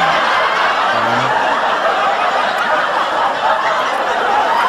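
Canned studio-audience laughter from a laugh track: a crowd laughing at a steady level.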